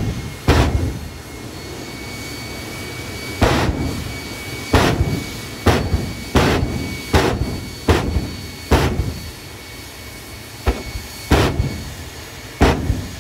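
Jet truck's jet engine running with a steady high whine, punctuated by about eleven sharp booms, roughly one a second, as fuel is dumped into the afterburner to throw fireballs.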